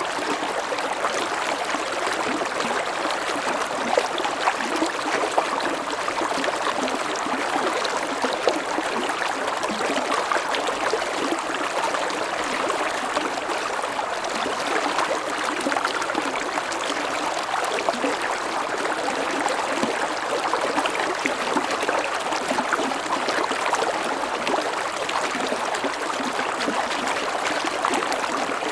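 Mountain stream running steadily: a continuous rush of water with small splashes and gurgles flickering through it.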